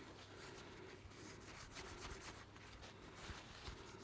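Faint, uneven rubbing of a cloth over small metal knife parts as they are cleaned.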